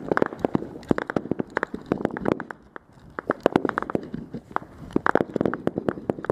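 Small-arms gunfire in a firefight: many sharp rifle shots coming in quick, irregular bursts, with a short lull about two and a half seconds in.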